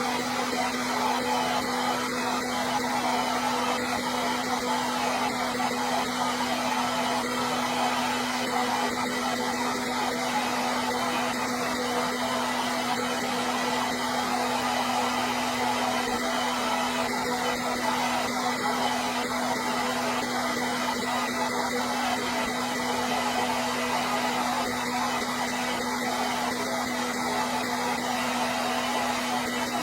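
Hair dryer running steadily: a continuous blowing rush with a steady motor hum underneath.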